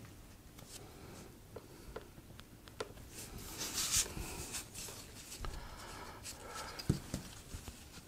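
Pencil scratching on a sheet of EVA foam as a cutting line is marked out, with scattered light taps and handling sounds. There is a louder scratchy stroke about halfway through and a soft knock near the end.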